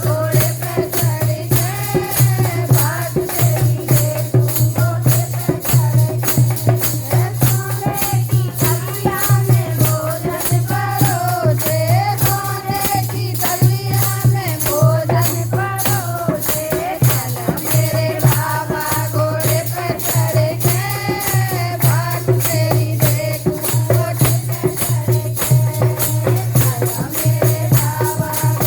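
Devotional bhajan music: a wavering sung melody over quick, even rattling percussion and a steady pulsing bass beat.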